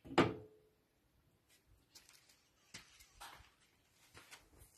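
A sharp knock with a short ring just after the start, then scattered faint clicks and scrapes of tools and parts being handled during work on the car's engine.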